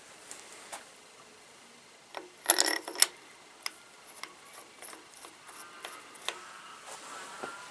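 Light metallic clicks and clinks of tools and metal parts being handled, with a brief clatter of metal about two and a half seconds in, the loudest sound.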